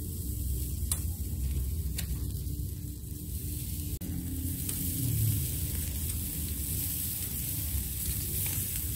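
Marinated chicken sizzling on a wire grill over charcoal, a steady hiss over a low rumble. Two sharp clicks about one and two seconds in, metal tongs on the grill as the pieces are turned.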